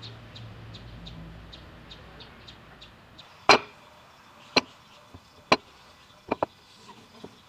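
Sharp blows on wood from a striking tool, irregularly about one a second, beginning about three and a half seconds in; the first is the loudest. Before them there is a faint rapid ticking over a low hum.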